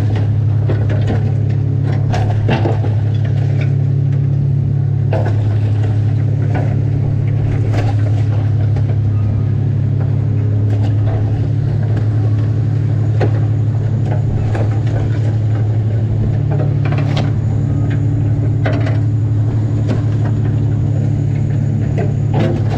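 Crab boat's engine running with a steady low drone, under scattered sharp clacks of Tanner crabs being tossed and knocked about on a metal sorting table.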